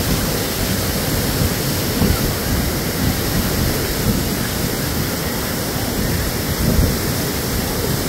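Steady rush of waterfall water flowing over rock, with an uneven low rumble underneath.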